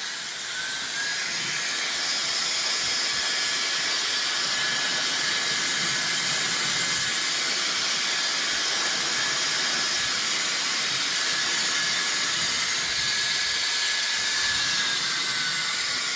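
Dyson-style bladeless hairdryer running: a steady rush of air with a thin high motor whine that rises slightly about a second in and drops away near the end.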